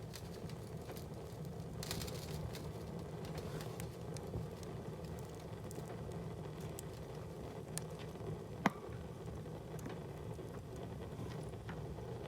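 Wood fire in a fireplace crackling, with scattered small clicks and one sharp pop about eight and a half seconds in, over a steady low rumble.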